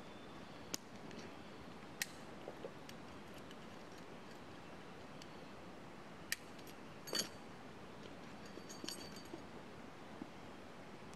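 A few sharp clicks and small rattles of camping gear being handled, a small cluster of them a little past the middle, over a faint steady hiss.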